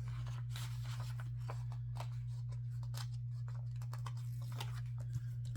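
Paper rustling and small clicks and taps as planner stickers are handled and pressed into place on the page, over a steady low hum.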